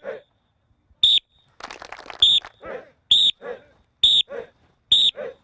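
Sharp whistle blasts, about six in a row roughly a second apart, each short and high. They time a football drill, and each blast is followed by a brief shout.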